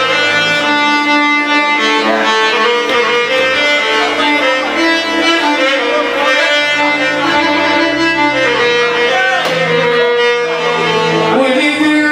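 A live band playing an instrumental passage of Iraqi music, with a melody of long held notes moving step by step over a bass line and no singing.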